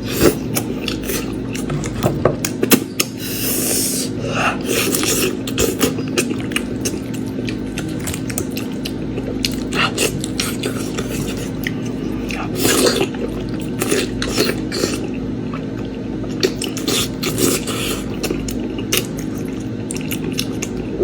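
Close-up eating sounds: wet chewing and smacking on lamb meat and beef trotters, with many sharp clicks and scrapes of utensils against a dish, over a steady low hum.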